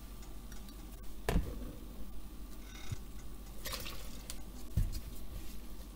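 Water poured from a glass measuring cup into a mixing bowl, with dripping and splashing, along with a sharp knock a little over a second in and a dull thump near the end.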